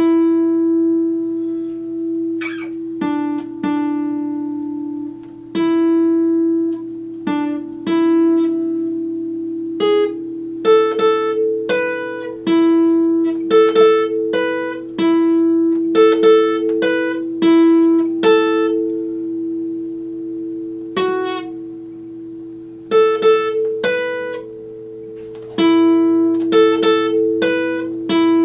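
Epiphone acoustic guitar played solo: single notes plucked one at a time in a slow, unhurried line over a low note that keeps ringing underneath.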